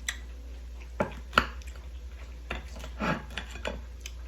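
Half a dozen short, sharp clicks and taps of kitchenware, scattered irregularly and loudest about a second and a half in, as pineapple is handled and eaten.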